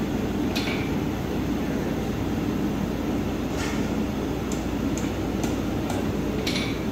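Steady low rumbling background noise with a few faint, brief ticks scattered through it.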